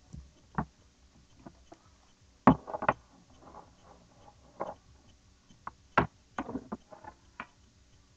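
Scattered sharp clicks and knocks with some soft handling noise as a metal trading-card tin and its pack are handled and opened; the loudest knocks come about two and a half and six seconds in.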